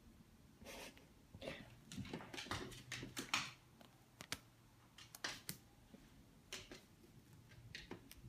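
Soft rustling and scuffling with scattered light clicks and taps as a kitten scrambles over a person's lap and a dog moves up close to it; the rustles bunch up in the first half and a few sharp clicks follow.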